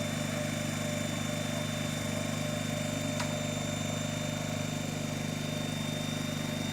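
Car engine idling steadily, a constant low hum, with a single sharp click about three seconds in.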